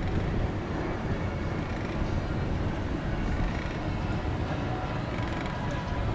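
Steady wind rumble on the microphone of a camera riding an open sky-ride chair, with a faint murmur of the crowd below.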